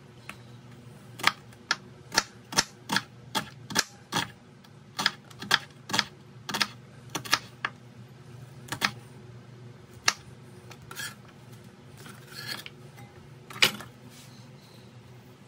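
Knife chopping vegetables on a cutting board: a quick run of about fifteen sharp chops at two or three a second, then a few scattered chops further apart, over a steady low hum.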